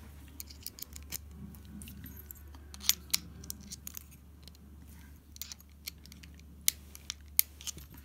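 Scattered sharp metal clicks and scrapes of a screwdriver being worked against a brass padlock, with a few louder clicks among them.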